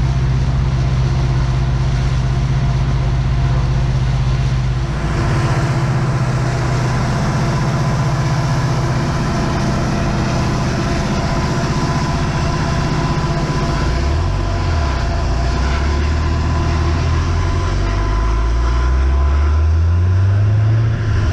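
Montana Rail Link SD70ACe diesel locomotives running alongside with a steady low rumble, then the noise of a car driving a gravel road, its engine rising in pitch over the last several seconds as it speeds up.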